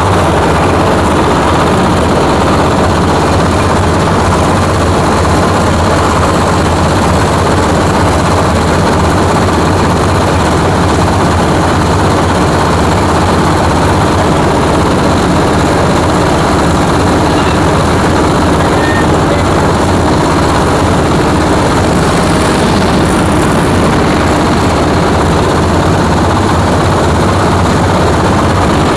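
Coconut-husk grinding machine fitted with a 5 mm screen, running steadily and grinding husk into cocopeat: a loud, continuous mechanical drone with a rattling edge.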